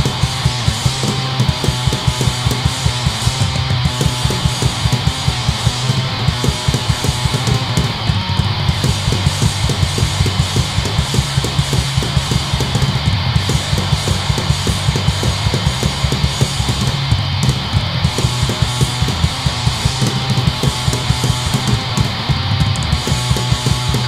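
Hardcore punk band playing live: distorted electric guitar, bass guitar and drum kit, driven by a fast, steady drumbeat.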